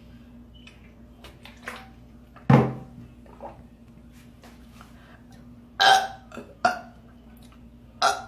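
A woman burping: one loud, deep burp about two and a half seconds in, then several shorter burps near the end.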